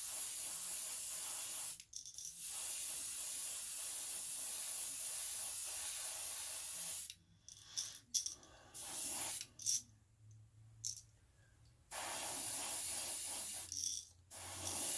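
Gravity-feed airbrush spraying paint onto a crankbait, a steady hiss of air and atomised paint. It breaks off briefly about two seconds in and stops about seven seconds in. A few short puffs follow, then a steady spray for about two seconds near the end.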